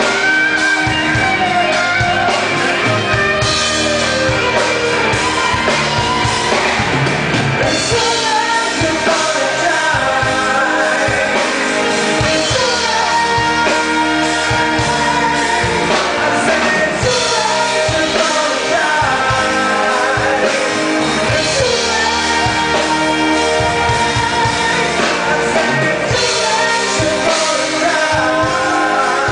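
Live band playing a song: a woman singing lead over electric guitar and drum kit.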